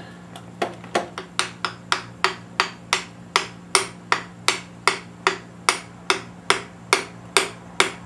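Repeated light taps, about three a second, driving a piston down through a ring compressor into a cylinder bore of a Ford 302 V8 block. The piston is going in as the taps go on.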